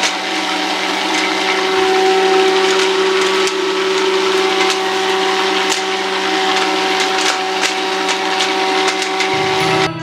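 Homemade vacuum cleaner's small motor and fan running steadily, a hum with a noisy rush of air, with scattered light ticks as paper scraps are sucked into the hose. It cuts off near the end.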